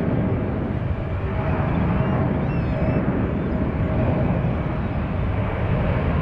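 Boeing C-17A Globemaster III's four Pratt & Whitney F117 turbofan engines at takeoff power during the takeoff roll: a steady, loud, deep rumble.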